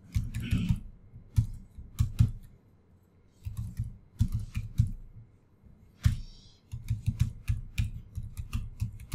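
Computer keyboard typing: irregular runs of quick keystrokes, with a short pause about two and a half seconds in.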